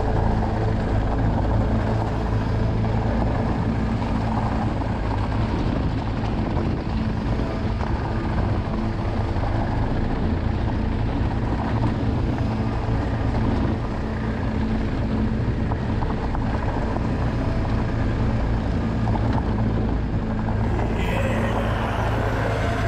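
Motorcycle engine running at a steady speed while riding, with wind noise on the microphone. A higher hiss joins near the end.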